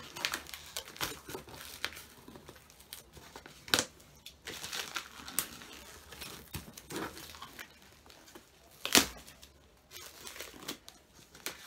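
Plastic wrapping crinkling and tearing as it is pulled off a cardboard parcel, in irregular rustles, with two sharp cracks, one about four seconds in and a louder one about nine seconds in.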